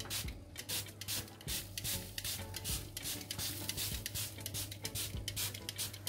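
Irregular rubbing and scuffing, several strokes a second, from a cloth handled at the open oven, over the steady low hum of the oven's convection fan.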